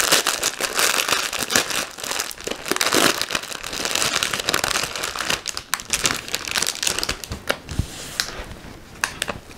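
Clear plastic bag crinkling and rustling as a bundle of embroidery thread is worked out of it, dense crackling that thins out near the end.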